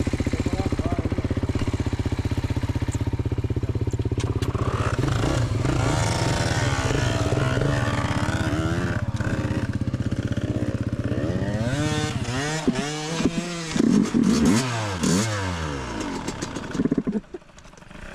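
Yamaha YZ125 two-stroke dirt bike engine idling steadily, then revved in a series of rising and falling sweeps that grow sharper and faster in the second half, before dropping back near the end.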